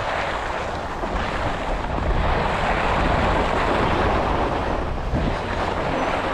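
Continuous hiss of a snowboard sliding and scraping over snow, with wind rumbling on the microphone.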